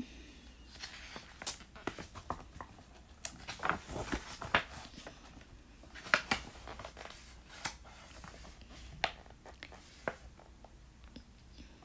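Soft paper rustling and scattered light taps as a picture book is opened and its pages are turned by hand.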